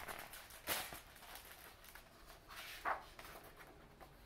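Paper rustling as a hardcover picture book's pages are handled and turned: a few soft swishes, the clearest about a second in and near three seconds in.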